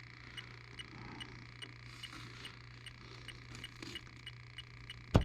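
Electronic refrigerant leak detector ticking steadily at about three ticks a second while sniffing along an evaporator coil for a leak, over a low steady hum. A single sharp click near the end.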